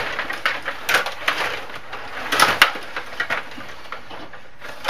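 Stiga Stanley Cup rod hockey table in play: irregular clacks and rattles of the rods being pushed and spun, the plastic players and puck knocking, with the busiest, loudest clatter about two and a half seconds in.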